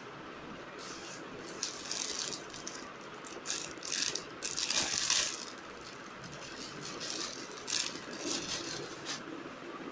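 Rustling as a folded dress is handled and shaken out, in short irregular bursts, loudest about halfway through.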